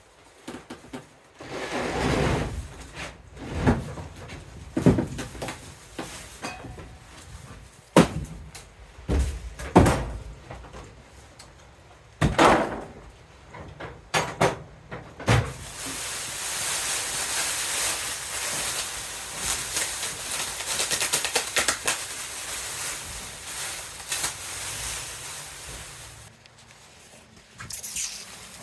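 Irregular knocks and thuds from handling and unpacking the mill's shipping crate and parts. In the second half they give way to about ten seconds of steady hissing noise.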